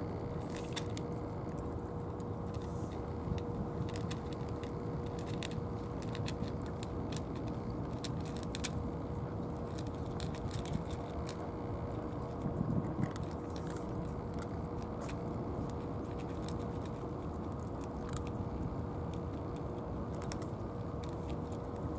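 Two cats crunching dry kibble from bowls: a scatter of small, sharp crunches over a steady low background rumble with a faint constant hum.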